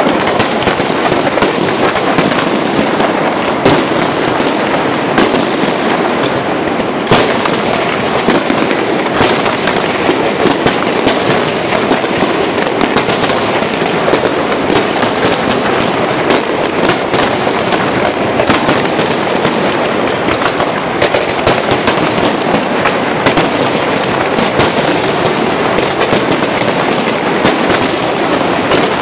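Fireworks display going off, loud and without a break: a dense barrage of bangs and crackling, with sharper reports standing out every second or so.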